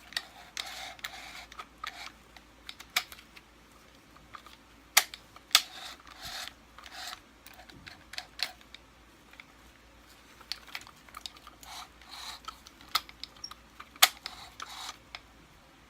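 Parts of a Kirby Sentria II vacuum's tech drive being handled: irregular plastic clicks and knocks with short scrapes, the sharpest knocks about five seconds in and again near fourteen seconds.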